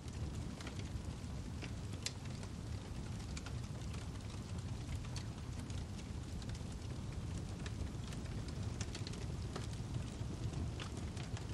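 Crackling fire ambience: a steady low rush of noise with scattered sharp crackles.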